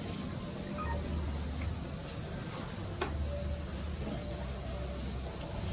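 Steady high-pitched drone of insects, over a low rumble, with a few faint short chirps and a single faint click about three seconds in.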